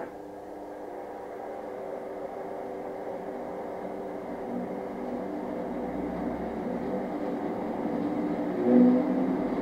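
A click, then a Specialized S-Works Ground Control knobby mountain-bike tyre rolling on the motor-driven drum of a rolling-resistance test rig, its hum growing steadily louder as the drum spins up to test speed. There is a brief swell near the end.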